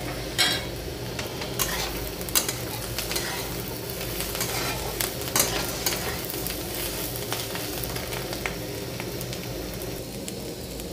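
Chopped vegetables sizzling in a wok (kadhai) as a steel spatula stirs them, with scattered sharp scrapes and clicks of the spatula against the pan.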